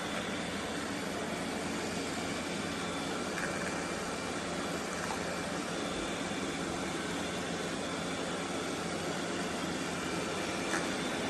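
Robot vacuum running: a steady fan-like noise with a faint, steady high tone over it.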